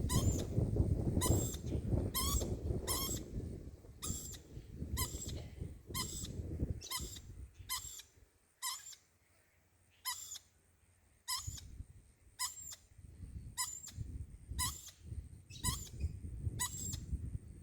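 Lorikeet giving short, shrill squeaky calls over and over, about one a second. Low rumbling noise sits under the calls for the first several seconds and again near the end.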